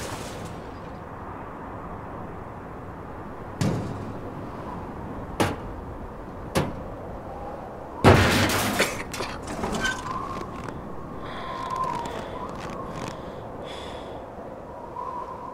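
Scattered knocks and thuds around a freshly crashed car, the loudest about eight seconds in followed by a short spell of crackling, then a faint wavering whine.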